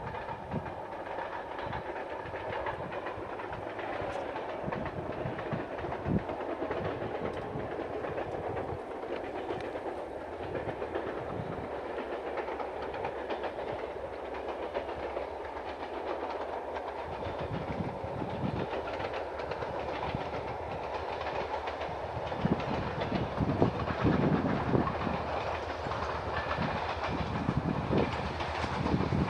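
Distant train approaching along the line: a steady rumble of locomotive and wheels that grows somewhat louder and more uneven in the last several seconds.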